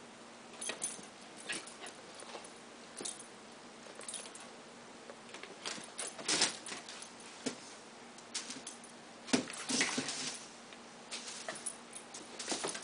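Irregular scuffles and clicks of a Pembroke Welsh corgi puppy jumping and pouncing at a feather wand toy, the loudest clusters about halfway through and about three-quarters through.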